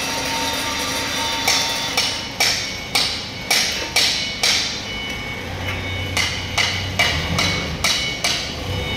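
Background music with a steady knocking beat, about two beats a second over held tones, with a short break in the beat near the start and a low bass hum coming in past the middle.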